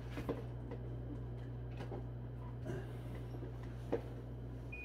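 Steady low hum of a wall-mounted air conditioner, with a few scattered clicks and knocks, the sharpest about a third of a second in and about four seconds in. At the very end the hum cuts off and a short beep sounds as the air conditioner is switched off.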